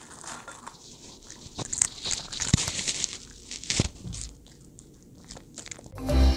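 Small dog eating from a bowl: crunching and chewing vegetables, with sharp clicks of teeth. Near the end a marimba jingle starts and is the loudest sound.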